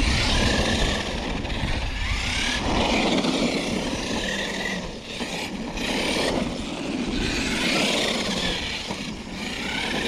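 Losi LMT Grave Digger RC monster truck driving on its brushless electric motor, set to 50% throttle: a steady high motor whine over tyre and drivetrain noise. The sound swells and eases every second or two as the throttle is worked.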